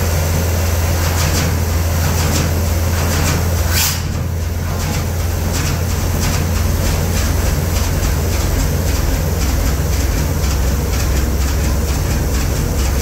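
Fairbanks Morse 32E six-cylinder two-stroke diesel engine running with a low hum and a steady beat of knocks, in one of its first runs after restoration. About four seconds in there is a short sharp noise, after which it runs a little quieter.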